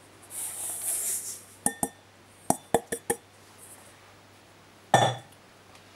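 Sugar poured into a stainless steel mixing bowl onto egg yolks, with a soft hiss for about a second, followed by several sharp clinks of the container against the bowl and a dull thump near the end.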